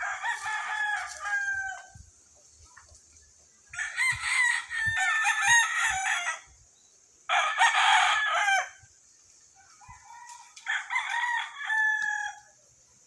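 Roosters crowing: four crows in turn, each one to nearly three seconds long, the second the longest.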